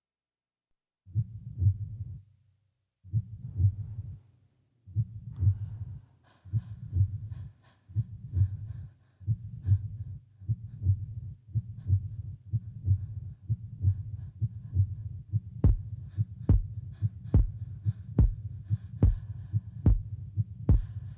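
A heartbeat-like throbbing pulse in a dramatic soundtrack. It starts slow, about one beat every two seconds, and gradually quickens. Sharp clicks join each beat in the last third.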